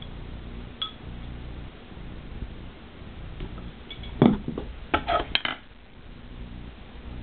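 Drumstick clattering: a single click about a second in, then a burst of sharp knocks and clicks a little past four seconds in, lasting about a second and a half.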